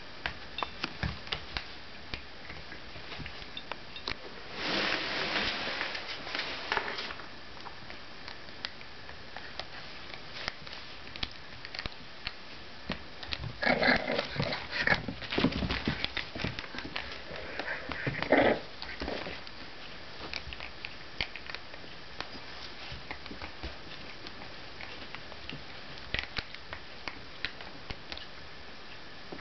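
Border terrier puppy chewing and gnawing a rubber toy: scattered small clicks and scrapes, with a few louder, busier stretches a few seconds in and again about halfway through.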